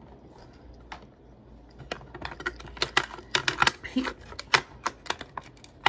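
Plastic lip balm tubes clicking and clattering against each other as they are sorted through by hand, a rapid irregular run of small clicks starting about two seconds in.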